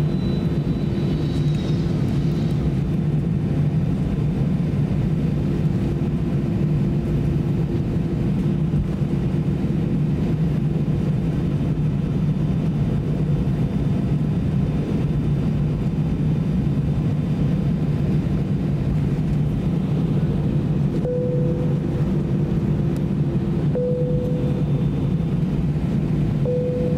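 Steady drone of an Airbus A320 cabin before takeoff, with a constant low hum. About 21 seconds in, the cabin chime sounds 'pōn' three times, about two and a half seconds apart.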